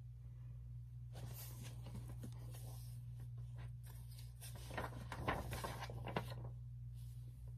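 Paper rustling and soft handling noise as a page of a paperback picture book is turned, with a few light knocks about five to six seconds in, over a low steady hum.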